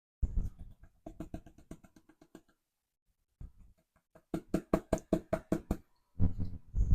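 Rapid knocking on a gold pan, in runs of about five knocks a second with short pauses between, the loudest run near the end.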